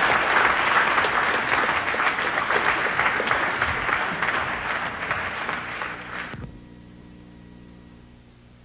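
Large audience applauding, a dense steady clatter of many hands that cuts off abruptly about six seconds in, leaving only a faint steady hum.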